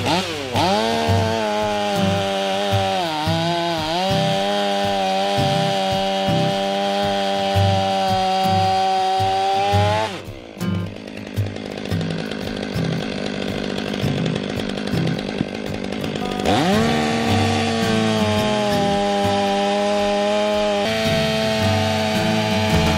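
Two-stroke chainsaw running at high revs while cutting firewood, its pitch sagging and recovering under load. About ten seconds in the engine note falls away for several seconds, then revs sharply back up to a steady high whine.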